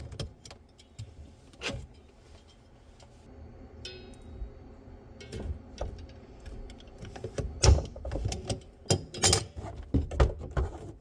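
Scattered clicks and knocks of a trap seal primer valve and its fittings being handled, with a brief high squeak about four seconds in and a run of louder knocks in the last few seconds.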